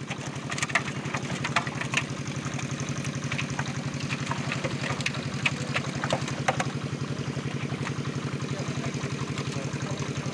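A small engine running steadily with an even, rapid pulse, under sharp splashes and slaps of fish thrashing in a seine net.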